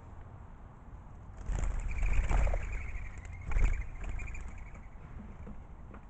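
A flock of mourning doves flushing from the ground, a burst of wing flutter with the whistling of their wings, starting about a second and a half in, with a second burst at about three and a half seconds.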